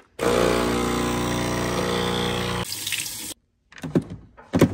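Built-in conical burr grinder of a Breville Barista Express espresso machine running steadily for about two and a half seconds, grinding beans into the portafilter, then winding down. A few sharp knocks follow near the end.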